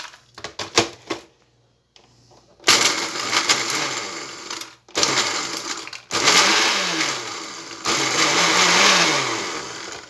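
Walita Delta Eletrônico blender run on its pulse key, grinding dry bread into breadcrumbs. After a few clicks and a short pause come four loud bursts of the motor and rattling bread, each one to two seconds long, with the motor pitch sliding up and down within them.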